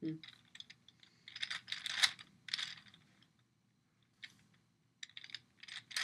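Plastic gear ball puzzle being twisted, its gears giving quick runs of clicking and rattling. The clicks come in two bursts with a pause of about two seconds between them.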